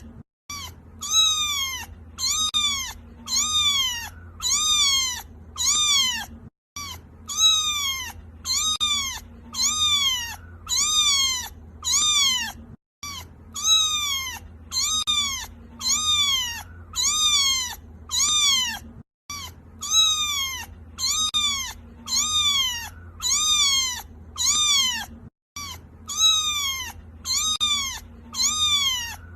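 A kitten crying in quick, high meows, about one and a half a second, each rising then falling in pitch. It is a short recording that loops about every six seconds, with a brief dropout at each restart.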